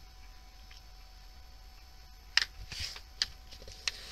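A sheet of printer paper handled on a table: a few sharp paper clicks and a brief rustle about halfway through as the folded-in-half sheet is opened out and pressed flat.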